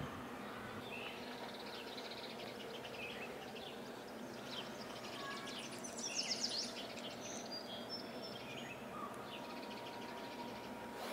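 Outdoor ambience of small birds chirping and singing over a steady background hiss, with a quick run of chirps about six seconds in that is the loudest part.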